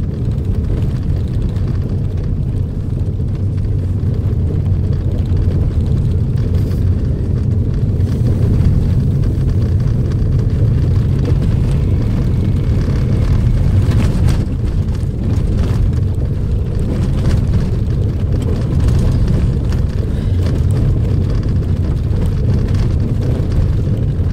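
A car driving on a rough dirt track, heard from inside the cabin: a steady low rumble of engine and tyres, with a few brief knocks from the bumps, the clearest about fourteen seconds in.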